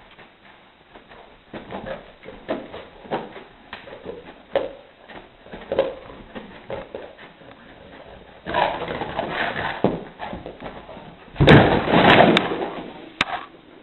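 A sleeping dog running in its dream: its paws scuff and scrabble on carpet among soft, muffled dog noises, then a louder scrabbling, and about eleven seconds in a sudden loud clatter as it runs into the wall and the loose wooden boards lying against it.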